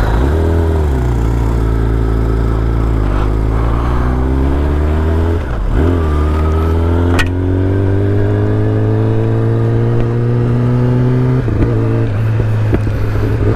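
Kawasaki ZX-10R's inline-four engine pulling under way, its revs climbing slowly and dipping briefly a few times, with one sharp click about seven seconds in.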